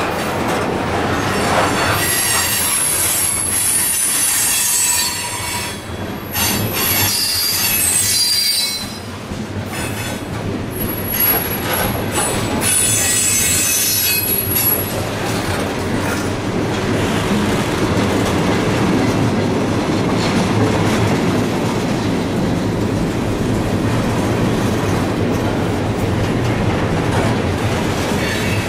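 Freight cars rolling slowly past on street-running track, their wheels squealing high-pitched on and off through the first half, then settling into a steady rumble and clatter.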